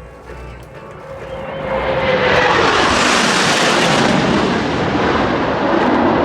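Military jet making a low pass. The jet noise swells over about a second, with a falling whine as the aircraft goes by, then stays loud and steady.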